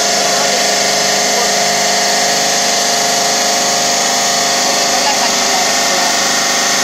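Bridge saw's electric motor and water-cooled diamond blade running steadily through a porcelain slab in a wet cut, a loud, even whine with no breaks.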